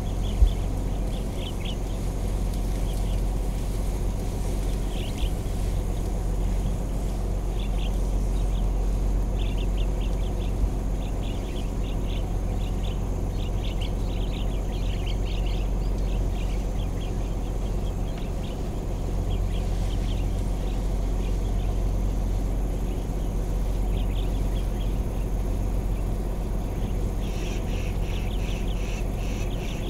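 Birds calling in short, repeated chirps over a steady low hum of an idling vehicle engine.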